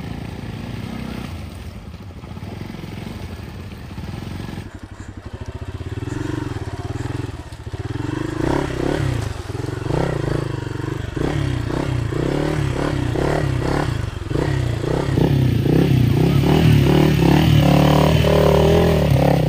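Motorcycle engine running under load and revving up and down while riding a rough dirt track, with rattling and clatter over the bumps. It gets louder in the last few seconds.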